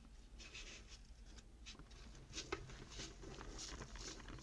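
Faint, irregular scratching and brushing of fingers pressing a sheet of foam, backed with pressure-sensitive double-sided tape, down into a metal tool case lid so that the tape grips.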